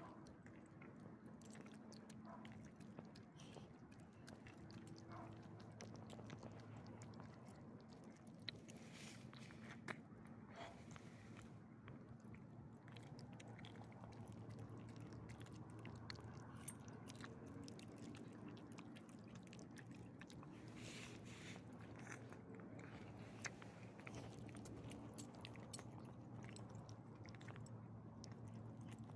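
Small elderly dog licking and chewing soft food from a person's palm: faint, scattered small clicks of mouth sounds over a low steady hum.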